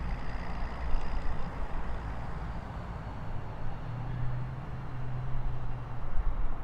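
Low rumble of passing motor-vehicle traffic, with an engine hum that holds steady for a second or so in the middle.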